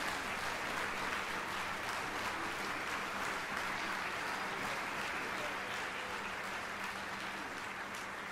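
Audience applauding: dense, steady clapping that eases slightly toward the end.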